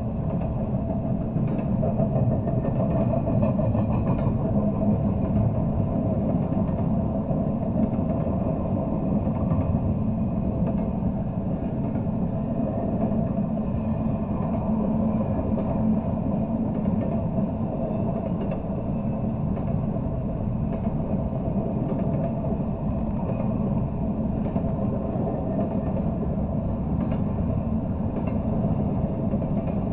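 Double-stack intermodal freight train passing: a steady rumble of wheels on rail, with a few faint clicks.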